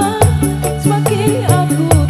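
Live dangdut band music: a woman sings a wavering melody over bass and drums, with a steady high percussive tick about four times a second.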